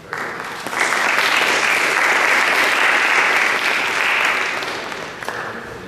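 Audience applauding after a talk. The clapping starts suddenly, grows fuller about a second in, then fades off near the end.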